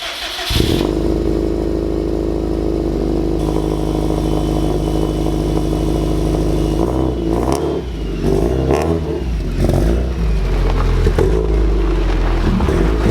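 Subaru STI's turbocharged flat-four cold-started on fresh spark plugs gapped tighter to cure a misfire: it fires about half a second in and settles into a steady high cold idle. From about seven seconds in the engine note becomes less even, rising and dipping.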